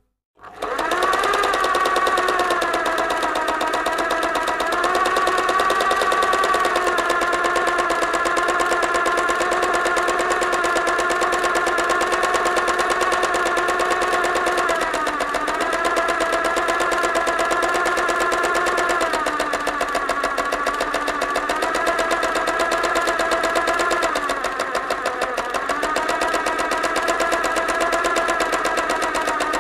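Sewing machine running fast, a rapid, even stitching clatter over a motor hum. It starts up right after a brief silence at the start and slows slightly a few times.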